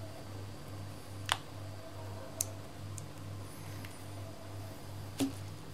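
Hands handling a Huawei Y7 Prime phone over bubble wrap: a few short sharp clicks and taps, the loudest about a second in and near the end, over a steady low hum that pulses about three times a second.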